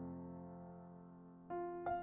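Background keyboard music: a held piano chord fades away, then new notes are struck about a second and a half in.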